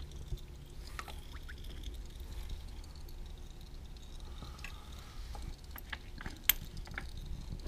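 Faint, steady trickle of old engine oil running from a Honda Gold Wing's drain-plug hole into a drain pan, with a few light clicks and taps; the sharpest click comes near the end.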